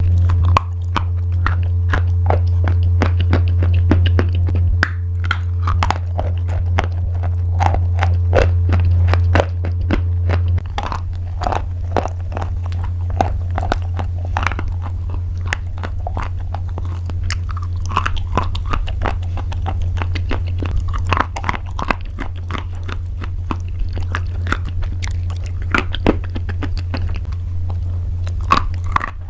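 Close-up biting and chewing of crunchy pasta: a dense run of sharp, crisp crunches. Beneath it runs a steady low hum that drops in level about ten seconds in.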